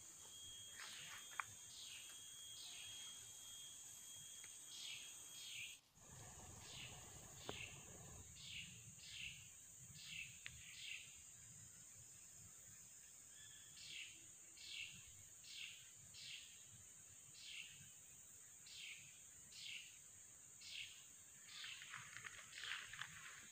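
Faint tropical rainforest ambience: a steady high insect drone, with a short high call repeated in bunches about one to two times a second. Near the end, louder scattered rustling comes in.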